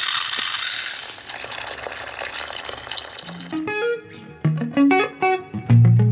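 Dried peas poured from a plastic bag into a steel bowl, a dense rattling hiss of many small hits that cuts off about three and a half seconds in. Then background guitar music with single plucked notes.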